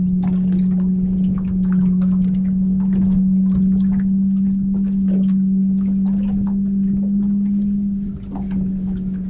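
A steady low hum holding one pitch throughout, with many small ticks and clicks scattered over it.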